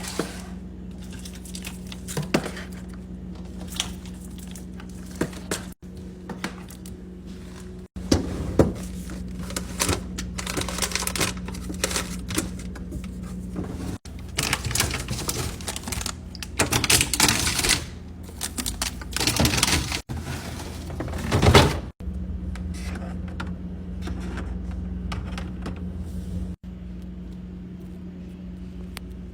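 Food containers and packaging being handled and set down while restocking a fridge: repeated clicks, thunks and rustling of wrappers over a steady low hum. The sound changes abruptly several times, with the busiest handling in the middle.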